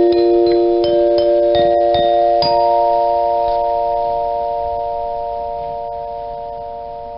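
Dinner chime's tuned metal bells struck in a quick run of several notes, then left ringing together and slowly dying away.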